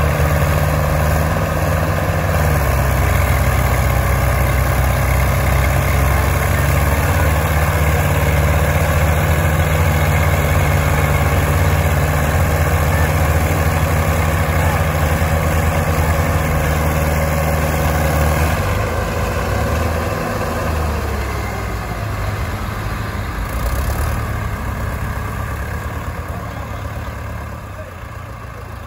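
Diesel engines of several tractors, Mahindra and Swaraj, running hard together under heavy load as they strain to pull a sugarcane-laden trailer out of the mud. About two-thirds of the way through they ease off, and the sound drops and slowly fades.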